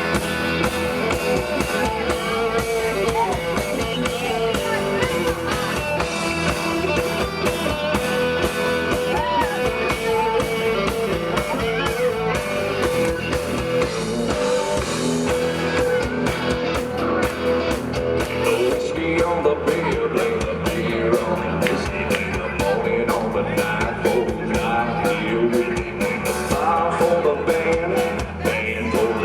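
Live band playing a blues-rock number: electric guitar over drums with a steady beat.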